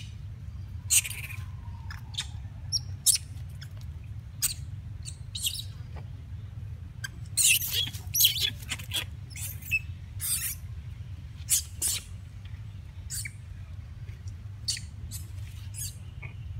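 Long-tailed macaques making short, high-pitched squeaks and chirps at irregular intervals, with a denser, louder cluster about halfway through.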